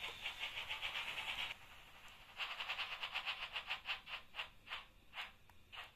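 Märklin H0 model steam train running, with a fast rhythmic ticking that breaks off about a second and a half in, resumes, then slows steadily to about two ticks a second, as the train slows down.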